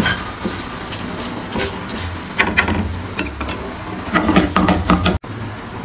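A spatula stirring and scraping through a small aluminium pan of hot oil tempering with whole dried red chillies, curry leaves and cumin: a run of sharp clicks and knocks against the metal, thickest in the second half. The sound cuts off abruptly about five seconds in.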